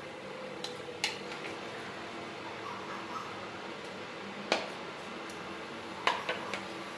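A spatula knocking and scraping against a stainless-steel pan and serving bowl as raw chicken pieces are tipped into the pan. There are several sharp taps: one about a second in, a louder one past the middle, and a quick cluster near the end, over a steady low hum.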